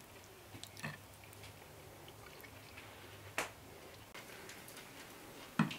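A fork taking a bite of soft baked chicken pudding from a glazed ceramic plate. There are a few sharp clicks and clinks of metal on the plate, the loudest about three and a half seconds in and again just before the end.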